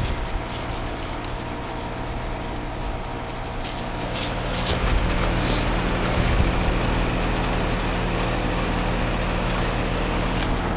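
Amana heat pump outdoor unit running: a steady compressor hum under constant fan noise.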